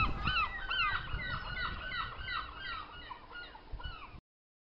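A flock of birds calling over and over, with quick, overlapping, hooked calls. The calls fade and then cut off suddenly about four seconds in.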